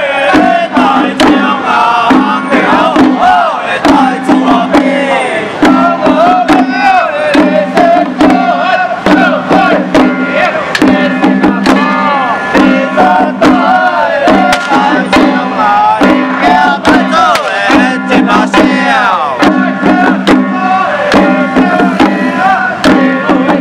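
A troupe beating many handheld long-handled drums in dense, irregular strikes while shouting and chanting together, over a steady low droning tone that breaks off briefly every couple of seconds.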